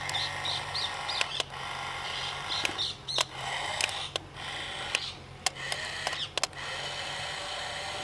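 Small electric motors and plastic gearboxes of a remote-control toy excavator whirring steadily as it drives on its crawler tracks and moves its arm, with scattered clicks and a few short high chirps.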